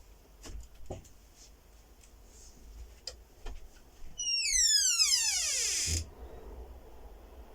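A few faint clicks, then about four seconds in a loud tone sweeps steeply down in pitch for nearly two seconds and cuts off abruptly.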